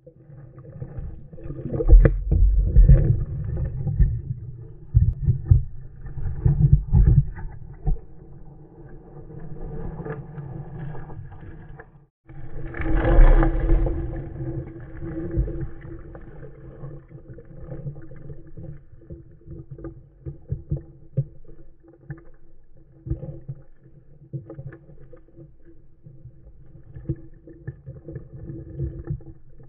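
Muffled underwater sound through a GoPro housing: low churning and thumps, with stones clicking and knocking as a Belgian Malinois paws and digs among the rocks of a stream bed. The churning is loudest in the first several seconds and again just after a brief dropout about 12 seconds in, then settles to scattered small clicks.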